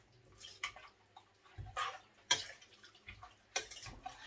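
Metal spoon clinking and scraping against a stainless steel pot while stirring seasoned raw meat, in several irregular strokes, the sharpest about two and a half seconds in and again near the end.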